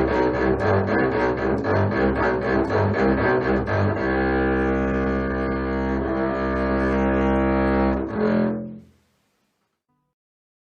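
A low bowed string instrument plays quick repeated notes, then holds one long note from about four seconds in. A brief last note follows, and the sound stops about nine seconds in.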